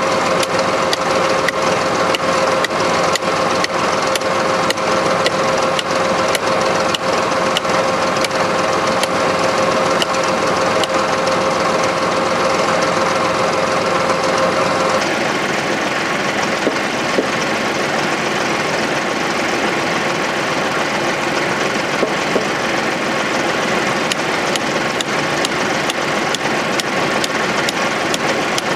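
Compact tractor's diesel engine idling steadily, with a light clatter throughout; its tone shifts about halfway through. A couple of brief knocks come in the second half.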